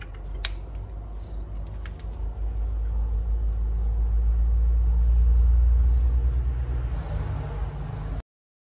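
Low rumble of a motor vehicle's engine, growing louder to a peak about five to six seconds in and then easing, with a couple of light clicks in the first two seconds. It cuts off abruptly near the end.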